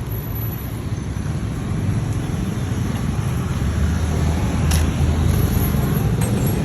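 Stick welding arc burning a 3.2 mm electrode from an inverter welder, with a continuous dense crackle that grows a little louder after a couple of seconds.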